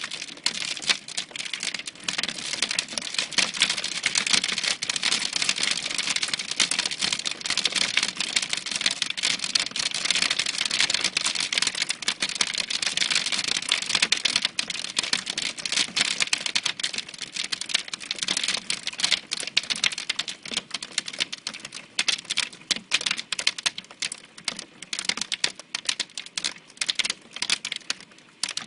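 Hailstorm: hailstones clattering against a window and its outer ledge in a dense, rapid run of clicks over a hiss of falling hail. The hits thin out to scattered ticks over the last ten seconds.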